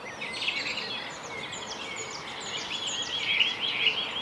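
Several songbirds chirping and singing over a steady background hiss, with a fast run of repeated notes near the end.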